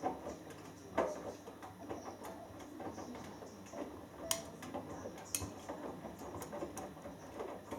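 Hoover Dynamic Next front-loading washing machine in the early part of a cotton wash, its drum turning and tumbling the load. There are irregular soft knocks and rustling over a faint hum, with a couple of sharp clicks near the middle.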